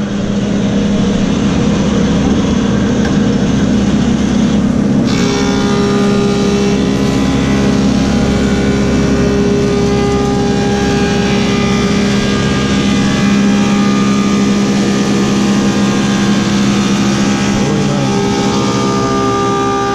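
Woodmaster 725 planer with a helical cutterhead running steadily. About five seconds in, a black cherry slab starts through the cutterhead and the cutting noise joins the motor's hum.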